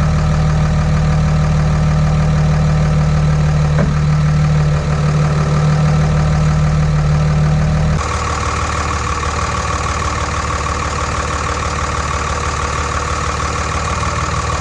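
Dodge Ram 2500's 5.9-litre Cummins inline-six diesel idling steadily. About eight seconds in the sound changes abruptly: the deep hum drops away and a higher steady tone comes up.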